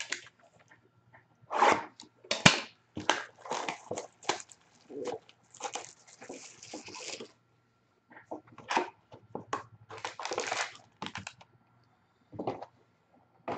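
Plastic shrink wrap crinkling and tearing as it is pulled off a Panini Playbook trading card box, in irregular rustling bursts with a few sharp clicks and a short pause midway, then the cardboard box being handled and opened.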